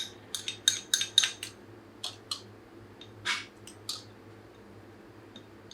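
Eating utensils clicking and tapping against a dish: a quick run of light clinks in the first second and a half, then a few more spaced out over the next few seconds.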